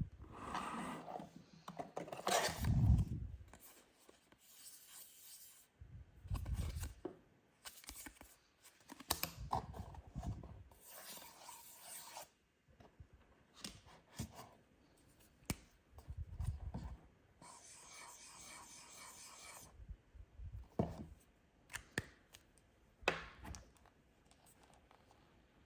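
Toy packaging being handled and opened by hand: irregular rustling, crinkling and scraping, with scattered sharp taps and clicks. There is a longer stretch of crisp crinkling about two-thirds of the way through.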